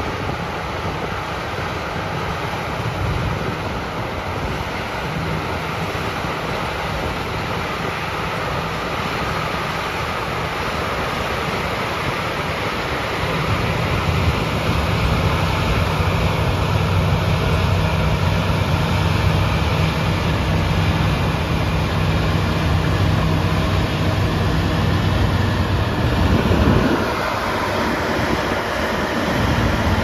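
John Deere X9 combine harvesters running while harvesting: a steady engine drone over a wash of machine noise, growing louder about halfway through. Near the end the drone drops away briefly, then returns.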